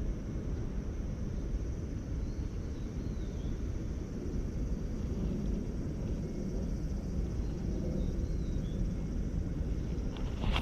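Steady low rumble and hiss of outdoor waterside ambience, with a few faint, brief high chirps.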